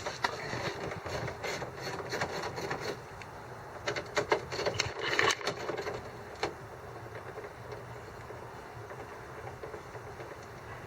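Scattered clicks and knocks of hand work on the truck's front-end grille fasteners and trim; they stop about six and a half seconds in, leaving only faint steady background noise.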